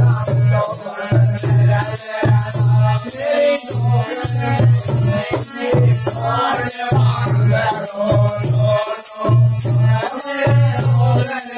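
Men singing a folk song to a harmonium, with a plastic jingle clapper shaken in a steady beat of about two to three strokes a second.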